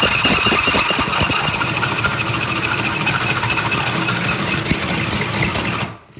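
24V DeWalt cordless drill driving a Spyder carbide-tipped hole saw through half-inch natural travertine stone tile: a loud, steady grinding with a high ringing tone. It stops suddenly near the end, once the saw is through the stone.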